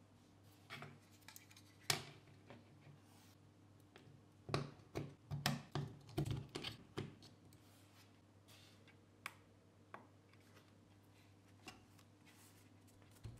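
18650 lithium-ion cells being handled and pressed into a plastic battery holder on a circuit board: a scatter of small clicks and taps, thickest about four to seven seconds in, with a few single clicks near the end.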